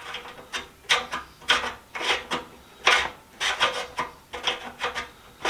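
Rubbing and scraping of small metal tools and parts being handled and shifted in a toolbox: about a dozen short, irregular scraping strokes.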